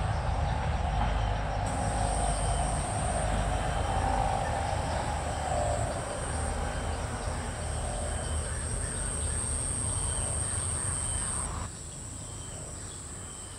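Insects calling steadily: a continuous high-pitched buzz over a lower hazy hum, with a low rumble underneath. The whole sound drops in level about twelve seconds in.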